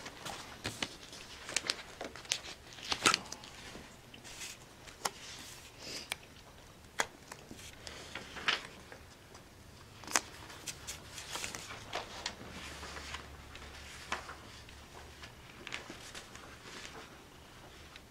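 Papers rustling and being handled, with scattered sharp clicks and taps at irregular intervals, as a document is marked as an exhibit.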